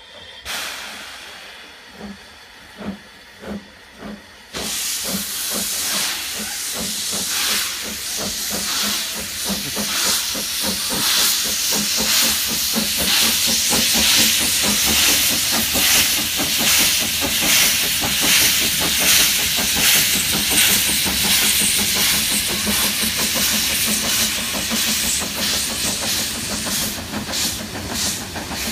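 Narrow-gauge steam locomotive starting away with its train: a few separate exhaust chuffs, then from about four and a half seconds a loud steam hiss from the open cylinder drain cocks over steady, rhythmic exhaust beats.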